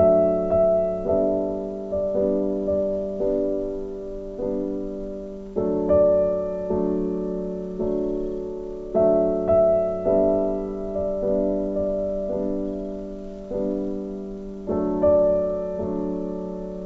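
Background piano music: gentle, slow chords struck at an even pace, each note left to ring and fade.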